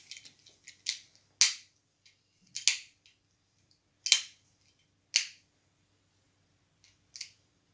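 A series of sharp, short clicks, roughly one a second, over a faint low hum.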